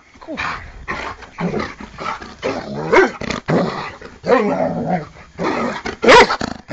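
Giant Schnauzer growling and barking in rough play, a run of uneven growls broken by sharp barks, the loudest near the end.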